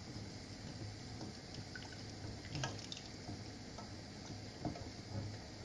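Faint liquid sounds from a stockpot of milky chicken sopas heating on a gas burner, not yet at the boil. A steady low hum and a few light clicks run underneath.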